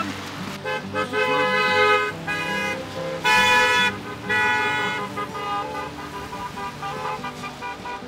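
Car horns from passing cars honking in a quick series of steady blasts, one car after another. The loudest and longest comes about three and a half seconds in, and shorter, weaker honks trail off toward the end.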